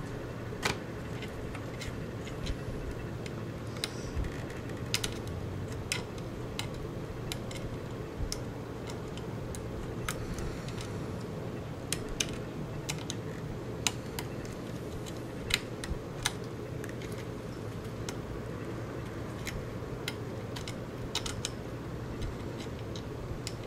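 Irregular small clicks and taps of fingers handling the plastic pi-top laptop case and its hub circuit board while a wire is pressed into place, over a steady low hum.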